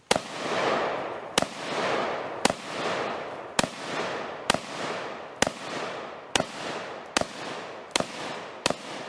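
SKS semi-automatic rifle in 7.62×39 fired about ten times in steady succession, roughly one shot a second and a little quicker near the end, each shot trailing off in a long echo.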